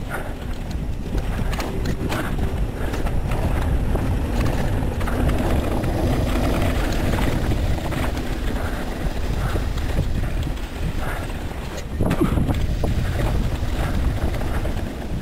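Mountain bike rolling fast down a dry dirt trail: tyres crunching over dirt, with the bike and camera mount clattering and rattling over the bumps, an uneven run of clicks and knocks over a steady rumble.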